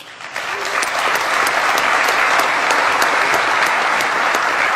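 Conference audience applauding: many hands clapping, building over the first second and then holding steady.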